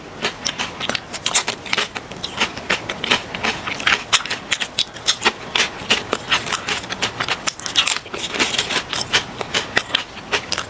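Potato chips being bitten and chewed close to the microphone: a dense run of sharp, crisp crunches with short pauses between mouthfuls.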